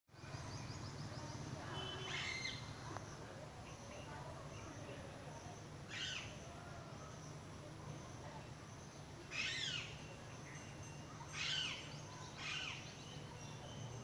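Wild parrots calling from a tree: about five short falling calls a few seconds apart, over a steady low background hum.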